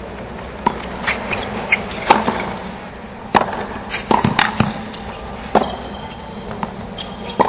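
Tennis ball popping off rackets and bouncing on a hard court during a rally: sharp knocks at uneven intervals, three in quick succession about four seconds in, over steady stadium background noise.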